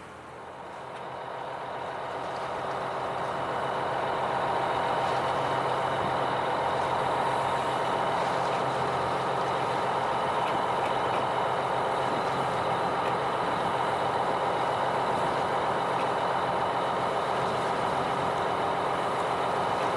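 Fishing boat's engine running, growing louder over the first few seconds and then holding steady.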